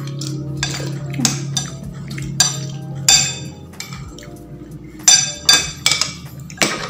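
Metal spoon and fork clinking and scraping against a plate while eating: a string of sharp ringing clinks, the loudest cluster about five to seven seconds in.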